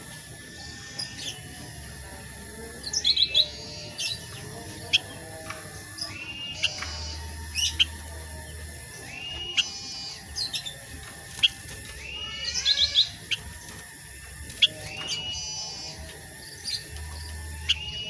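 Caged black-headed bulbul (kutilang sutra) singing: short, sharp chirps and brief whistled phrases at irregular intervals, roughly one burst every second or two.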